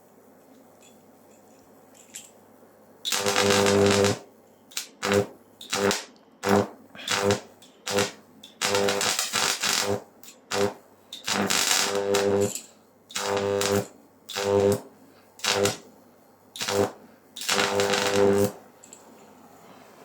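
High-voltage arc from a microwave oven transformer, a loud buzzing crackle with a mains hum in it. It is struck over and over in short bursts, some a fraction of a second and some over a second long, starting about three seconds in.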